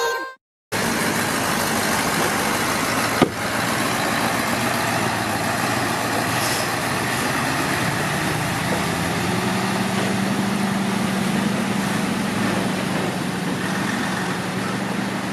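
Heavy diesel truck engine running steadily, its low hum growing stronger about eight seconds in and then holding. A single sharp knock about three seconds in.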